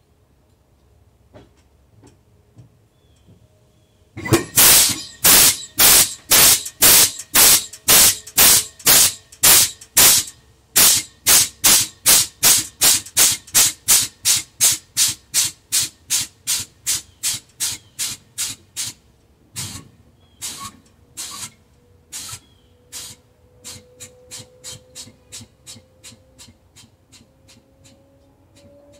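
The bus's compressed-air system being bled down. About four seconds in, short loud hisses of escaping air begin at about two a second, then grow weaker and further apart as the pressure falls, fading out near the end.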